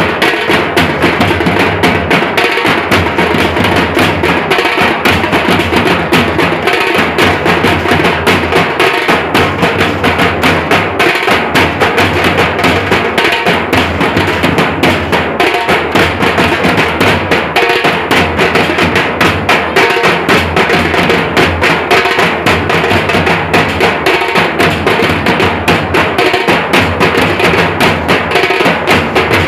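Nashik dhol band drumming: large barrel dhol drums and tasha beaten together in a fast, loud, unbroken rhythm.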